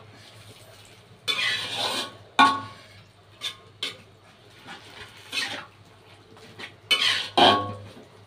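Metal spatula scraping and clanking against a wok as spinach and carrots are stir-fried, in about seven irregular strokes, a few with a short metallic ring.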